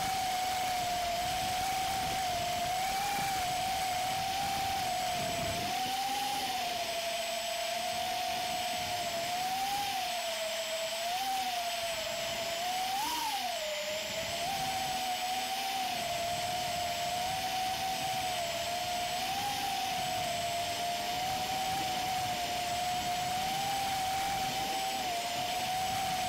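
3-inch FPV quadcopter's four GEPRC GR1206 brushless motors and EMAX 3025 propellers whining steadily as it flies, the pitch wavering up and down with throttle and jumping higher for a moment about 13 seconds in. Heard from the drone's own onboard camera, over a steady hiss of rushing air.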